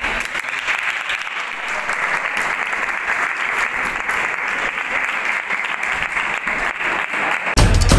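Audience applauding steadily, a dense patter of clapping. Near the end, loud music with a heavy drum beat cuts in.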